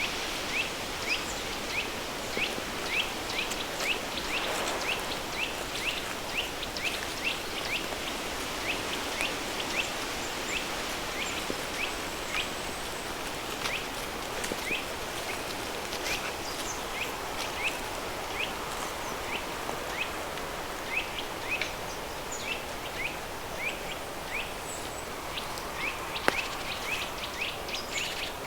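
Flowing river stream mixed with pink noise, a steady even hiss, with a bird chirping throughout in short high chirps that repeat about once or twice a second.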